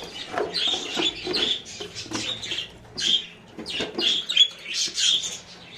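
Budgerigars chirping and chattering: many short, quick calls overlapping one after another.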